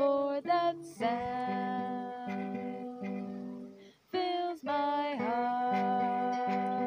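Acoustic guitar strummed, with a woman singing long, held, wordless notes over it. There is a short break about four seconds in, then the singing comes back.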